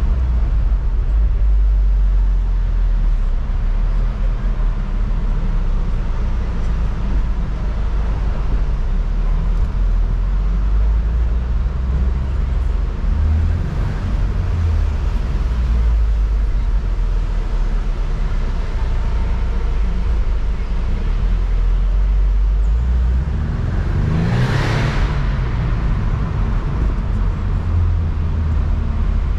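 BMW Z4 convertible driving on a mountain road: steady low engine and road rumble. Late on, another vehicle passes close by, its noise swelling briefly and falling away.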